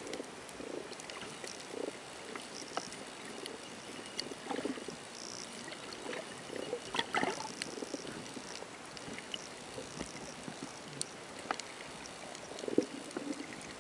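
Underwater sound picked up by a camera in its housing: scattered clicks and ticks over a muffled, uneven wash of water noise, with a few louder bursts near the end.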